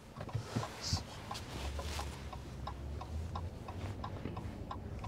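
A car's turn-signal indicator clicking about three times a second inside the cabin, over the low hum of the engine and tyres.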